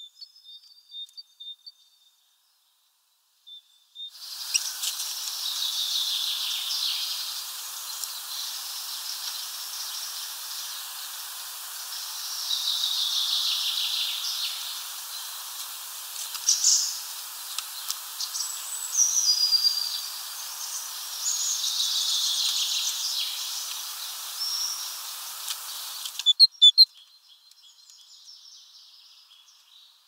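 Birds chirping and calling over a steady hiss of outdoor background noise. The hiss starts a few seconds in and cuts off abruptly near the end, followed by a few sharp clicks.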